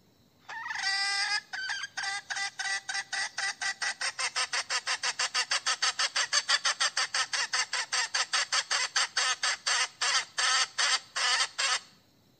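A decoy hen (Thai kai koi) calling to draw a rooster: one longer opening call, then a long fast run of short sharp clucks, about four to five a second, slowing near the end.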